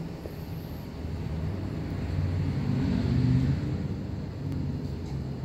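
Low engine hum of a motor vehicle, swelling about two seconds in and easing again after about three and a half seconds.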